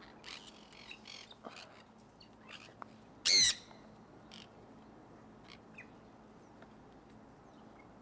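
Sun conures calling: a few short chirps, then one loud, harsh screech about three and a half seconds in, followed by scattered short chirps.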